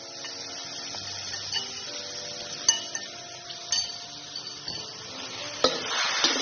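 Crumbled tofu, shrimp and ground chicken sizzling in oil in a stainless steel wok, with a metal spatula clinking and scraping against the wok a few times. The sizzling gets louder near the end as the stirring begins.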